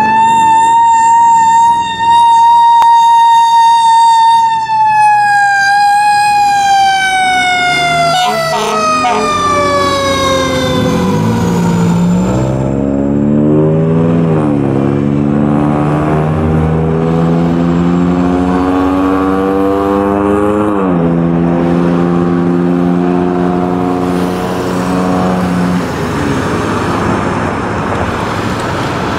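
Fire engine siren held at a high, steady pitch, then winding slowly down over several seconds. After it fades, the pumper's diesel engine pulls away under load, its pitch climbing and then dropping twice as the transmission shifts up.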